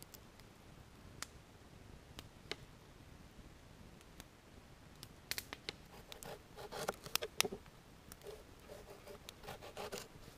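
Wood fire crackling with sparse single pops, then, about halfway through, a knife slicing raw potato on a plastic cutting board: a run of sharp cuts, taps and scrapes.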